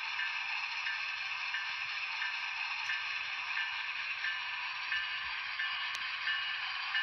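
N-scale GE AC6000CW model locomotive's sound decoder playing a steady diesel engine sound through its tiny speaker, thin and hissy with a faint repeating beat about twice a second, as the model moves slowly in reverse.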